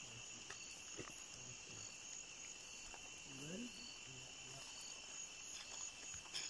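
Night-time chorus of forest insects: a steady, high-pitched, continuous trilling at two pitches, with a few faint clicks.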